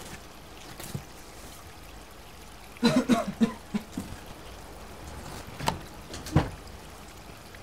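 Knuckles knocking on a wooden door: a quick run of five or six knocks about three seconds in, then two single knocks a few seconds later, over a steady hiss of rain.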